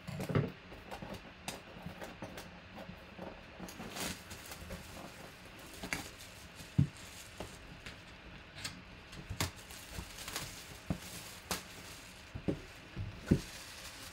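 Cardboard mailer box being handled and opened by hand: scattered, irregular taps, knocks and light scrapes as it is lifted, turned and its seal worked open.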